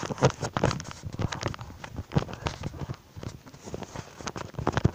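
Irregular knocks, taps and rubbing right at the microphone, from a handheld phone being shaken about, with a few louder thumps among them.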